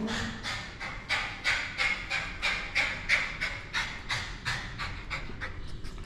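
Lhasa Apso dog panting: quick, noisy breaths at about three a second, growing weaker near the end.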